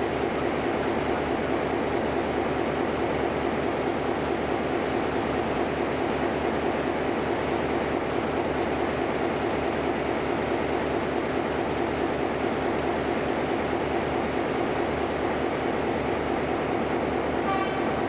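CFL 1604 diesel-electric locomotive (1955) standing still with its diesel engine running steadily at idle.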